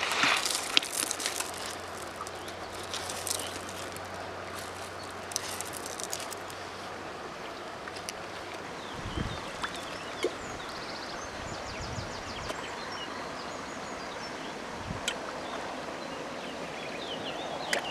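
Shallow river running over gravel, a steady rushing hiss. Close rustles and clicks come in the first few seconds, and a few low thuds come midway.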